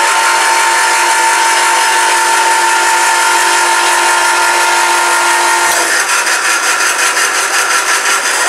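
Loud, steady whine of an electric motor or power tool. About six seconds in, the steady tones give way to a fast, even pulsing.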